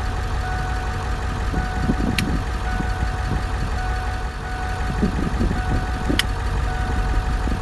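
Ambulance engine idling heard from inside the cab, a steady low rumble with a thin steady whine over it. Two sharp clicks, about two and six seconds in, from dashboard rocker switches being pressed.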